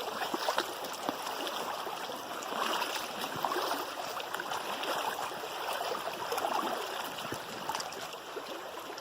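Stream water running steadily, an even rushing hiss with a few faint ticks.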